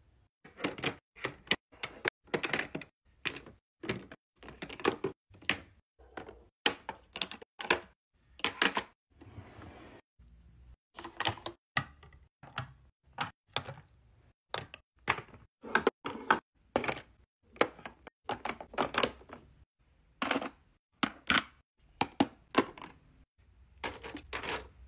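Plastic cosmetics and hair clips being set into clear acrylic organizers: a run of irregular sharp clicks and taps, plastic on plastic, with brief pauses between handfuls.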